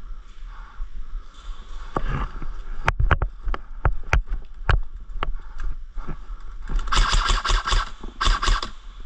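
Airsoft guns firing: a string of single sharp shots, then two rapid full-auto bursts near the end.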